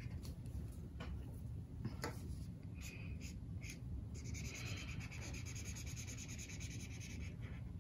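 Black felt-tip marker on paper. First come a few separate short taps and strokes, then about four seconds in a steady run of rapid scribbling strokes.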